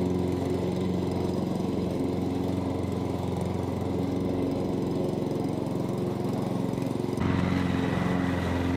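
Hyundai lawn mower running steadily while mowing, growing louder and brighter about seven seconds in as it passes close by.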